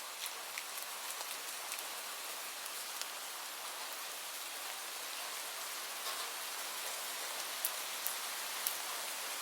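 Steady rain: an even hiss dotted with the sharper ticks of single drops, with a few louder drips near the end.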